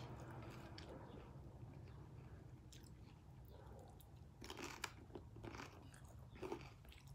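Faint eating sounds: a mouthful of crisp shrimp tostada being bitten and chewed, heard as a few short crunches from a little past halfway.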